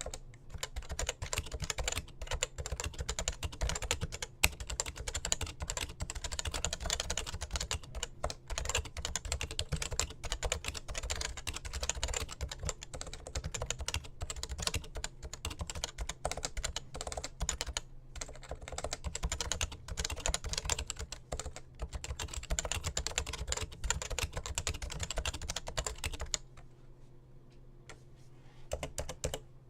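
Continuous fast typing on a Topre Realforce 91UDK-G keyboard with Topre electrostatic capacitive switches, a dense stream of soft keystrokes. The typing stops about 26 seconds in and starts again near the end.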